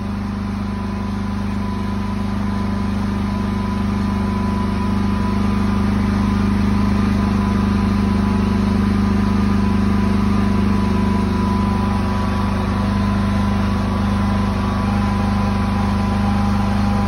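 Champion 4250-watt inverter generator running steadily at an even pitch, nearly unloaded with only an 8-watt LED bulb on it.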